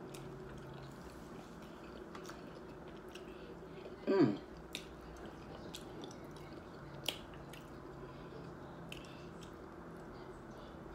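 A person chewing a crunchy hard taco shell with the mouth close to the microphone, with faint scattered crunches and mouth clicks. About four seconds in comes a brief vocal sound that falls in pitch, like a short hum.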